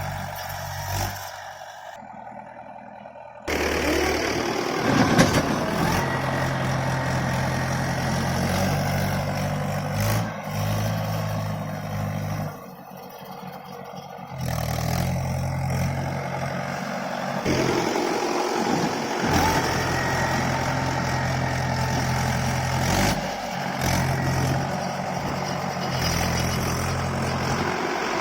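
Tractor diesel engines running steadily, with the sound changing abruptly several times as one clip cuts to another.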